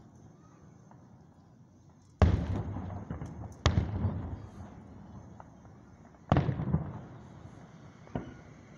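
Aerial fireworks shells bursting: a loud boom about two seconds in, another a second and a half later, a third about six seconds in, and a weaker bang near the end, each trailing off in a rolling echo.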